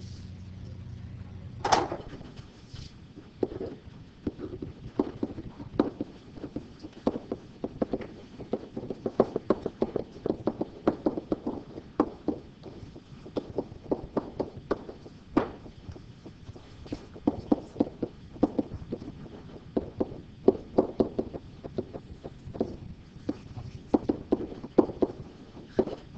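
Pen tip tapping and scraping on an interactive whiteboard while a line of words and an equation are handwritten: a quick, irregular run of small clicks and knocks, with one louder knock about two seconds in. A low hum cuts off at about the same moment.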